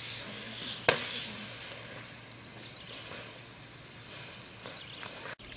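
Freshwater mussels sizzling in their shells on a wire grill over a charcoal stove, with a single sharp crack about a second in.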